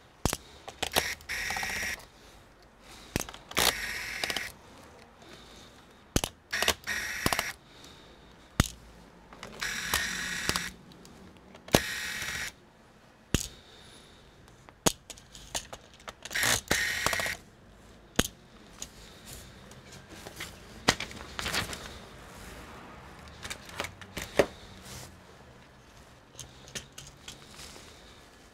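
Handling noise at a workbench: sharp plastic clicks and short rattling, scraping bursts as small screws and a clear plastic compartment parts box are handled during removal of a laptop's bottom-cover screws.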